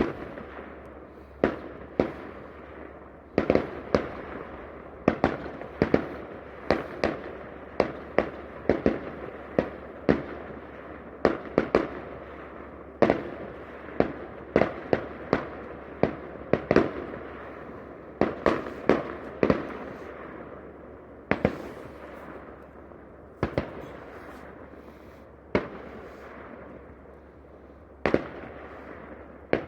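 Fireworks display: aerial shells bursting in irregular succession, often several bangs in quick clusters, each followed by echo and crackle.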